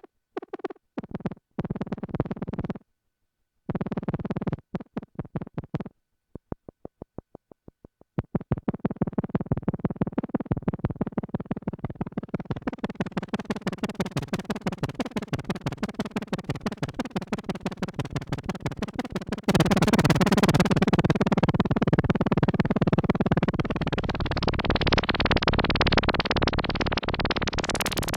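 Behringer Crave analog synthesizer playing a stream of short repeated notes. It starts in choppy bursts with gaps, then settles into a continuous rapid pattern that grows steadily brighter. About two-thirds of the way in it jumps louder and fuller.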